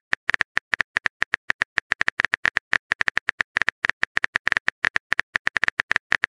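Phone keyboard typing sound effect: a rapid, uneven run of short taps, about ten a second, marking the next text message being typed.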